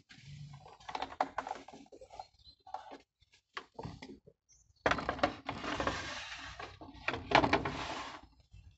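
Clatter and knocks as a corded circular saw is set on its aluminium guide rail, then, about five seconds in, a dense burst of sawing noise lasting about three seconds as it cuts along the rail through a wooden plank. The audio is sped up, so the saw's sound comes out as a choppy rush rather than a steady whine.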